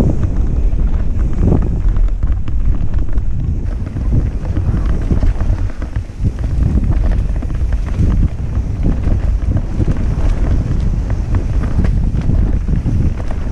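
Wind buffeting a helmet-mounted camera's microphone during a fast mountain-bike descent on a dirt trail, a heavy low rumble with scattered knocks and rattles from the bike over the rough ground.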